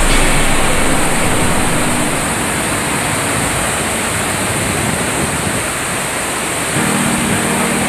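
Large outdoor fountain, its water jets splashing and pouring steadily into the basin as a loud, even rush. A low steady hum joins in near the end.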